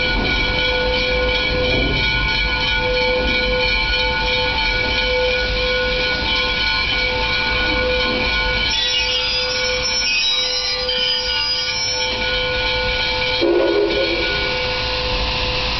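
Steam locomotive moving slowly onto a turntable: a low rumble under a steady, layered high whine. About thirteen and a half seconds in, a brief louder, lower-pitched tone sounds.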